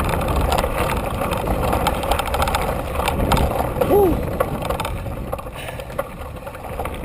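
Mountain bike rolling fast down a dirt trail: knobby tyre rumble and wind noise on the bike-mounted camera's microphone, with rattles and clicks from the bike over the bumps. A short squeal rises and falls in pitch about four seconds in, and the noise eases off toward the end as the bike slows.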